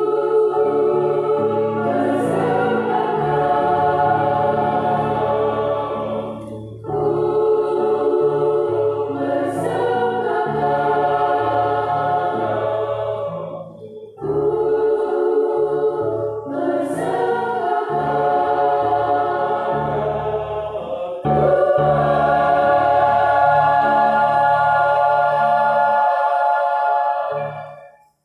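A women's choir singing in several parts, in long phrases with short breaks between them. The last phrase is the loudest and ends on a held chord that stops at the very end.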